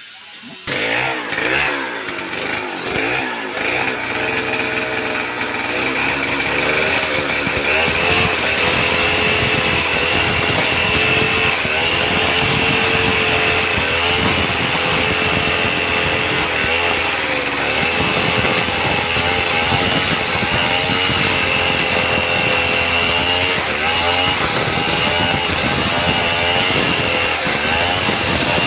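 A power tool cutting into wood, starting abruptly under a second in and then running steadily with a slightly wavering pitch.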